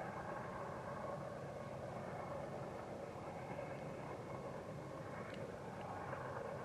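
BNSF freight train rolling past, a steady, even rumble of wheels on rail with a faint thin tone above it.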